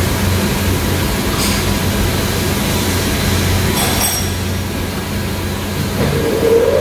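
Canon imageRUNNER iR3225-series copier running its Toner-S toner-supply routine, filling a newly fitted developing unit with toner: a steady mechanical hum from its drive motors. A short click comes about a second and a half in, and another about four seconds in.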